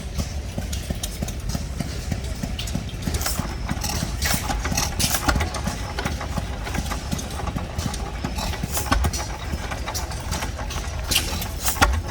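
Hit-and-miss stationary gas engines running: a steady low chugging with sharp clicks scattered throughout.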